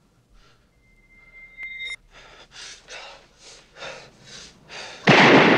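A man breathing hard in quick, ragged gasps, about two a second and growing louder, breaking into a sudden loud burst of sound near the end. A thin high tone holds for about a second before the gasping starts.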